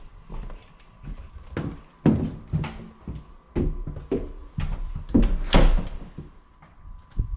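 Irregular knocks and thumps of an interior door being opened and handled, mixed with footsteps, the loudest knock about five and a half seconds in.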